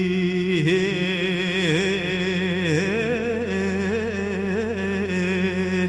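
A man singing a long held note in a Kurdish song from a cassette recording, wavering and dipping in pitch about once a second in ornamental turns. A steady low hum sits underneath.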